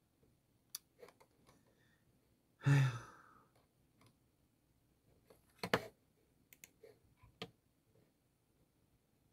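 A person's short voiced sigh about three seconds in, among scattered faint clicks, with a sharper double click a little before six seconds.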